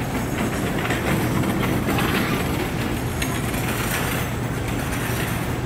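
Busy airport concourse ambience: a steady low hum with footsteps and the wheels of rolling suitcases on the tile floor.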